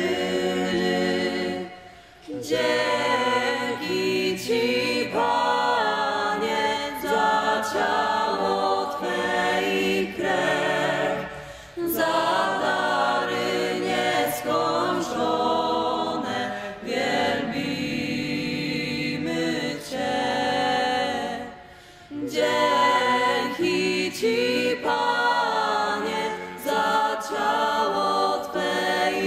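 Small mixed group of men and women singing a Polish communion hymn a cappella, phrase by phrase, with two short breaks between phrases.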